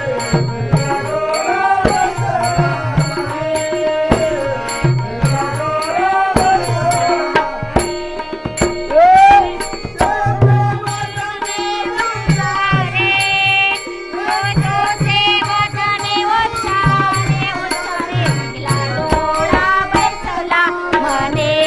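Marathi bhajan music: a wavering melody over a hand-drum beat, with a steady high ticking on the beat.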